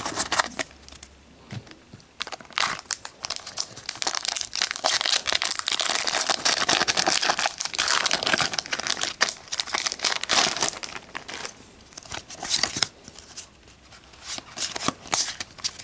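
Foil Pokémon booster pack wrapper being torn open and crinkled, a dense crackling that runs from about two seconds in until about eleven seconds in. After that the pack's cards are handled, giving lighter scattered clicks and rustles.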